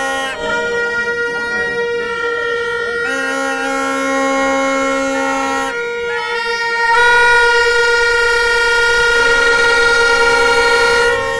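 Several plastic stadium horns (vuvuzelas) blown together in long held notes. The notes overlap, cutting in and out at a few different pitches, and grow louder about seven seconds in.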